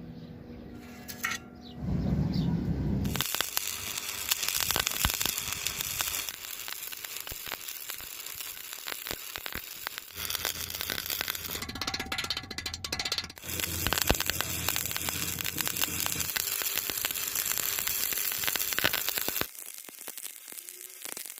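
Electric arc welding: the arc crackles densely in several runs, starting about three seconds in, with short breaks between the runs, and stops a couple of seconds before the end.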